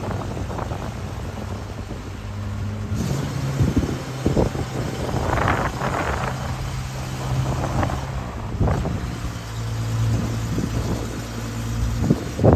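Heavy trucks' engines running at idle, a steady low hum, with gusts of wind buffeting the microphone.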